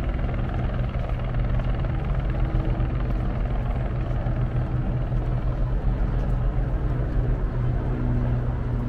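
Helicopter flying nearby, a steady unbroken drone.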